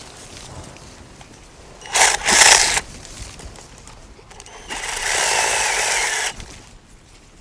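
Compact cordless electric chainsaw run in two short bursts while cutting a branch: a brief burst about two seconds in and a longer steady one from about five to six seconds in.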